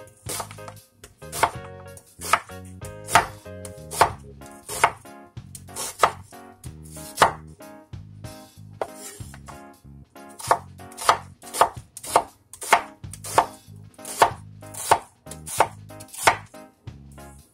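A wide-bladed knife chopping a white onion on a wooden cutting board, each stroke a sharp knock of the blade against the wood. The strokes come about once a second, then quicken to about two a second in the second half.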